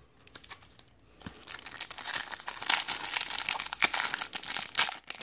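A 2015 Topps Platinum football card pack's foil wrapper crinkling and tearing as it is ripped open by hand: a dense run of crackles that starts about a second in.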